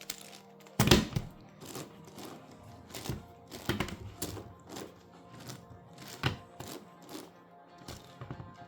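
Layers of an 11x11x11 Rubik's cube being turned by hand: an irregular string of plastic clacks, the loudest about a second in, over faint background music.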